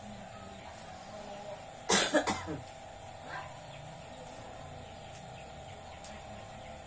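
A woman coughing: a short fit of about three quick coughs about two seconds in. She is suffering from a cough and nausea.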